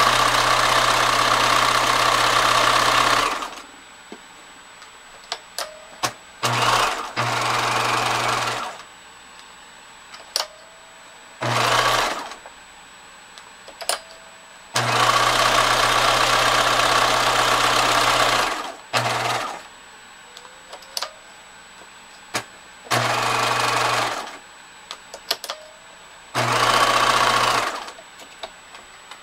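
Bernina 1011 sewing machine stitching in a series of separate runs, from under a second to a few seconds long, stopping in between, with small clicks in the pauses as the selector dial is turned to the next buttonhole step.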